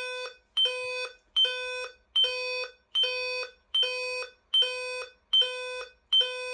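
Door-monitoring alarm unit sounding a steady repeating electronic beep, about five beeps every four seconds, each a buzzy tone with a sharper start. It is the door-open alarm: the door has been left open past its 30-second delay.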